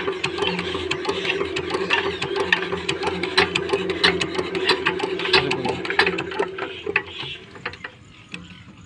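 Comet 5 HP single-cylinder diesel engine turning over as it is being started after its fuel line was bled of air. It makes a steady hum with a fast, irregular clatter of clicks, then slows and dies away near the end.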